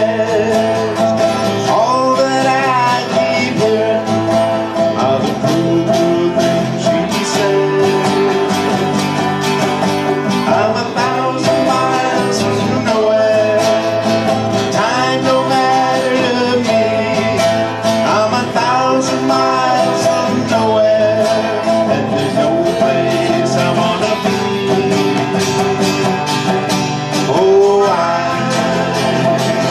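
Live country-folk music on a strummed acoustic guitar, played steadily, with a melody line that slides up and down over the strumming.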